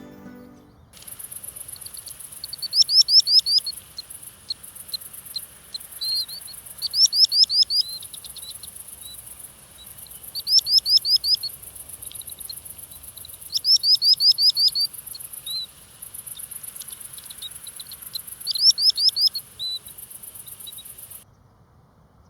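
A songbird singing: short phrases of rapid falling notes, repeated about every four seconds, with soft single calls between them. The song starts about a second in and stops near the end.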